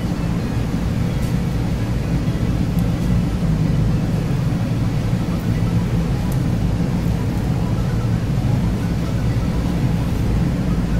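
A steady low rumble with no clear rhythm or change.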